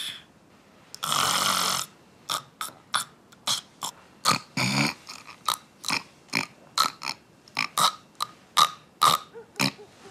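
A woman snoring heavily in her sleep: one long snore about a second in, then a run of short snorts about two a second, with one longer snore near the middle.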